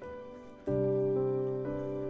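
Soft instrumental background music: sustained notes, with a louder new chord struck about two-thirds of a second in and further notes changing about every half second.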